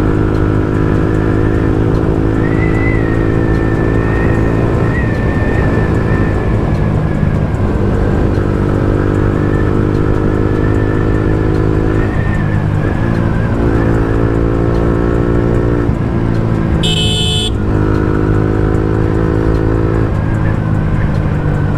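Motorcycle engine running under way, its steady note breaking off and resuming several times. A short high-pitched sound cuts in about three-quarters of the way through.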